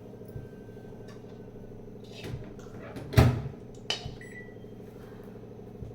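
Kitchen clatter: a few knocks of cookware or utensils, the loudest about three seconds in, over a steady hum.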